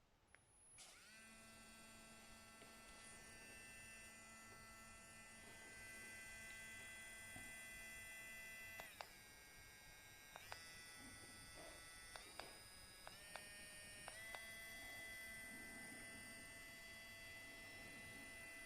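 Cordless electric nail drill motor starting up about a second in and running with a steady whine, then stepping between speeds several times, each change marked by a small click.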